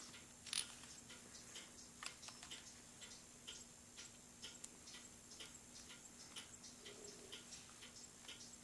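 Faint, light clicks and ticks at uneven spacing, about two or three a second, over a low steady hum.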